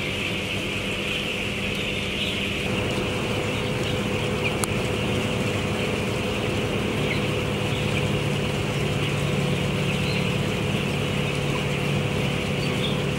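Steady chorus of many broiler chicks peeping together, over the steady hum of the poultry house's ventilation fans.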